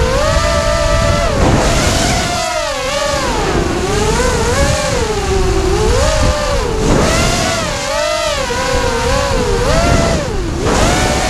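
FPV racing quadcopter's brushless motors and propellers whining, the pitch swooping up and down constantly with the throttle as it races low over the ground. Wind rumbles on the onboard camera's microphone underneath.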